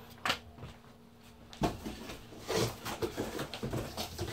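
Cardboard box being opened and rummaged through by hand: a sharp knock about a second and a half in, then rustling and scattered light knocks of the box flaps and packing.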